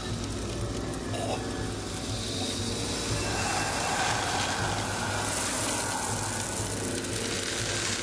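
Crackling, sizzling sound effect of a body withering and crumbling to dust, over a low steady drone. The hiss swells about five seconds in.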